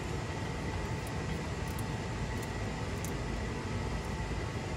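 Steady low rumbling background noise with a faint constant hum, and a few faint light ticks.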